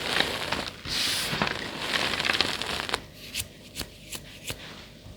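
Gym chalk being crushed by hand, a dense crunching and crumbling for about three seconds, then a few separate sharp crackles as it settles.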